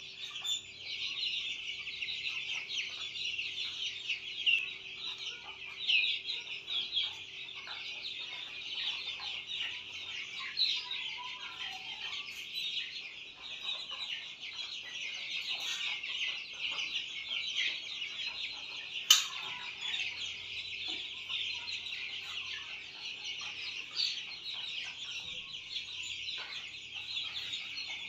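A flock of 32-day-old Australorp chicks peeping continuously, a dense chorus of short high calls. A single sharp click stands out about two-thirds of the way through.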